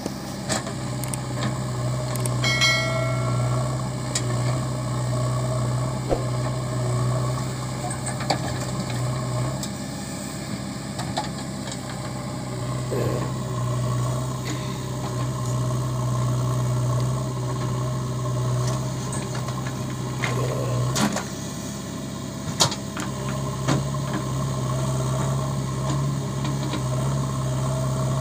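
JCB 3DX backhoe loader's diesel engine running steadily under load as the backhoe digs mud and swings it to a truck, with a few sharp clanks and knocks, two of them close together about three-quarters of the way through.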